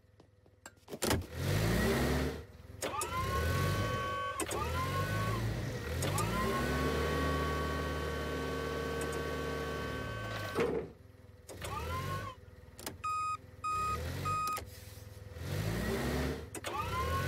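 Forklift motor whirring up in pitch again and again as it drives and lifts, once holding a steady whine for about four seconds. Near the end come three short reversing beeps.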